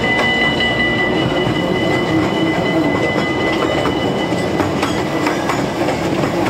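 Oude Tufferbaan amusement-park ride train running along its track, wheels clacking over the rail joints, with a steady high wheel squeal that fades out about two-thirds of the way through.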